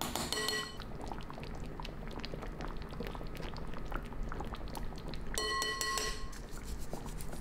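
A pan of veal stew simmering, its thick sauce bubbling steadily with many small pops. A steady pitched tone sounds briefly near the start and again about five and a half seconds in.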